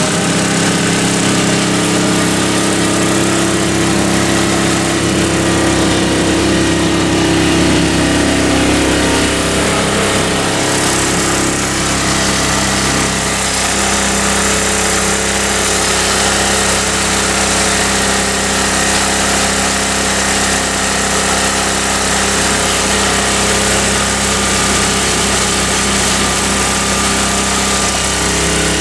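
MTD snowblower's single-cylinder Tecumseh engine running steadily while it throws heavy wet snow; about twelve seconds in, the engine note shifts and settles into a new steady pitch.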